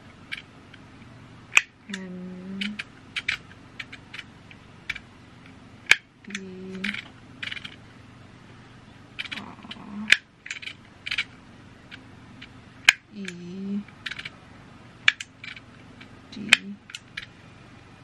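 Handheld embossing label maker: its character wheel is turned in runs of small clicks, and the handle is squeezed to punch each letter into the tape with a sharp snap every few seconds. A short low tone sounds about four times.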